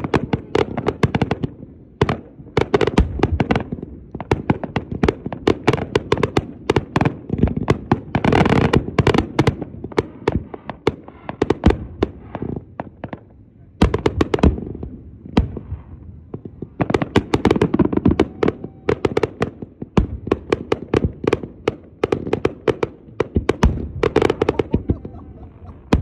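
Aerial fireworks show: shells launching and bursting in quick succession, many sharp reports a second, thinning out briefly about halfway through before picking up again.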